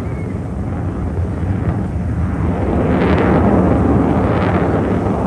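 An aircraft passing overhead at an air show, its rushing rumble swelling to a peak about three to four seconds in.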